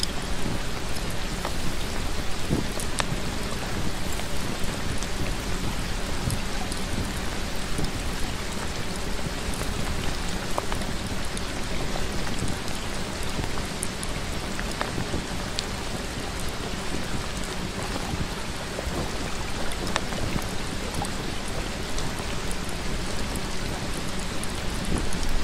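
Steady rain sound with scattered raindrop ticks, unchanging throughout.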